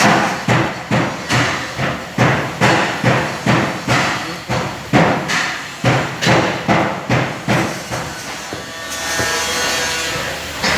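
Hammer tapping on a seat belt retractor's parts: about two sharp blows a second for some seven seconds, then stopping.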